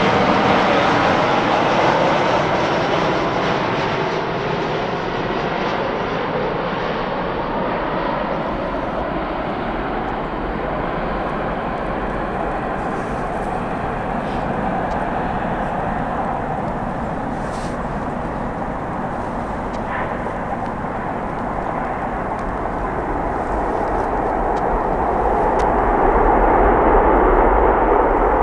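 Boeing 737-800 airliner's CFM56 jet engines during landing. The noise is loud at first, eases off through the middle, then swells again near the end.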